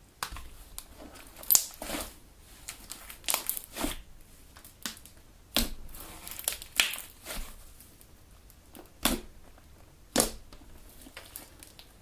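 Elmer's galaxy slime being kneaded and stretched by hand, squishing and crackling in an irregular run of pops, a few much louder than the rest.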